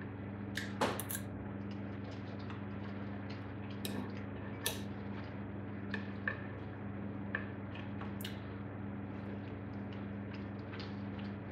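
Metal knife and fork on a ceramic plate while food is cut: scattered light clinks, taps and scrapes, a few sharper ones about a second in and again midway, over a steady low hum.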